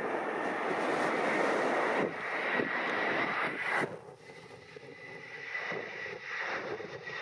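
Jet airliner engines running with a faint steady whine, the noise dropping off sharply about four seconds in; wind on the microphone.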